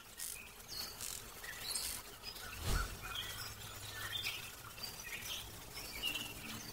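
Small birds chirping in short, scattered calls, with one dull low thump a little under three seconds in.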